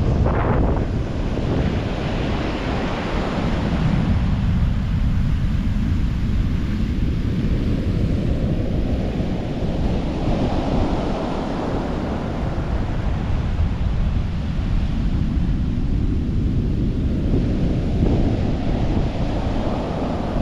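Surf breaking and washing on a beach, swelling and ebbing over several seconds, with strong wind buffeting the microphone.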